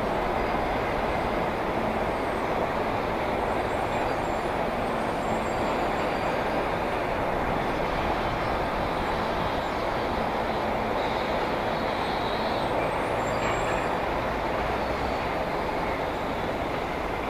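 Steady rumble of elevated subway trains on the steel structure, mixed with street traffic noise below. It eases slightly near the end.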